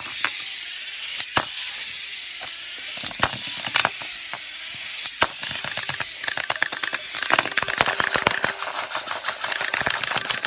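Wind-up toys' clockwork mechanisms running, a busy clicking and whirring over a steady hiss; the clicking gets much denser and faster about six seconds in.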